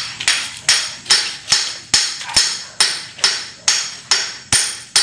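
Hammer striking metal on a Mitsubishi 4D33 engine block during assembly: a steady run of blows, about two and a half a second, each with a short metallic ring.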